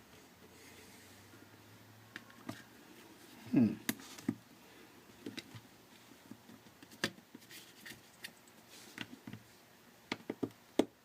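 Scattered small clicks and taps of pry tools working at the edge of a Nokia Lumia 1020's housing. A brief, louder sound falling in pitch comes about three and a half seconds in.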